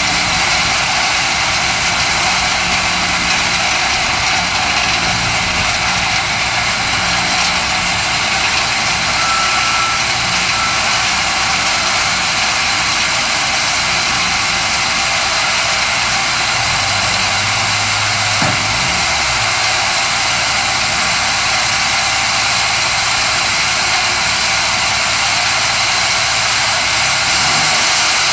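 Homemade vibrating topsoil screener running: a steady machine drone with a dense hiss over it and no break.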